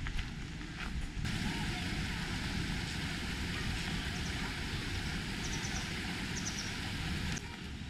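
Outdoor ambience with a steady rushing hiss that cuts in about a second in and cuts out abruptly near the end, with a few faint high chirps in the middle.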